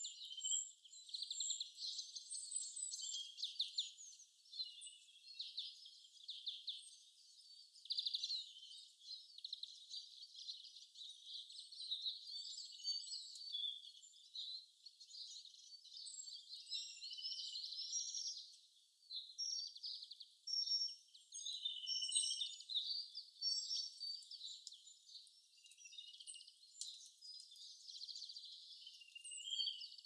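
Several small songbirds calling and singing at once: a continuous, overlapping chorus of high chirps, twitters and fast trills, with nothing low-pitched underneath.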